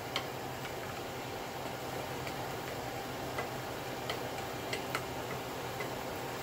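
Wooden spatula stirring chunks of meat in sauce in a stainless steel saucepan, with a handful of light, scattered clicks against the pot over a steady low hum.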